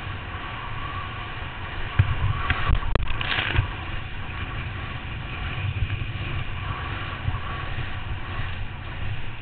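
Wind buffeting the microphone of a helmet-mounted camera and water spray hissing as a kneeboard is towed at speed across a boat's wake. A few knocks and a louder burst of spray come about two to three and a half seconds in.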